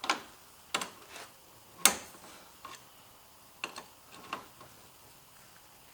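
Irregular sharp clicks and knocks of hand tools, about eight in all, the loudest about two seconds in: wrenches working at a stuck aluminium A/C line fitting.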